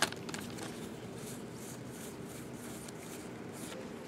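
A few faint, soft swishes of trading cards sliding against one another as a freshly opened pack's stack is handled and flipped through, over a low steady hum.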